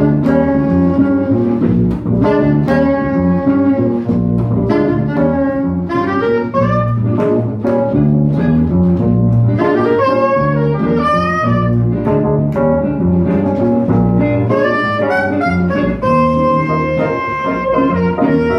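Live jazz quartet: a soprano saxophone plays a quick melodic line with bends and vibrato over upright double bass, Nord stage keyboard and guitar.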